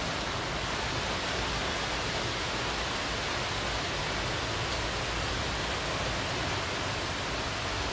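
Heavy rain pouring down in a thunderstorm, a steady, even rush of downpour with no breaks.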